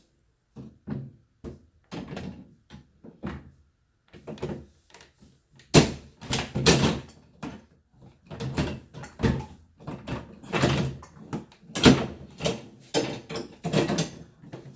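Refrigerator door knocking and clunking against the cabinet as it is handled and fitted onto its hinge pins: an irregular run of knocks, with sharp bangs about six and twelve seconds in.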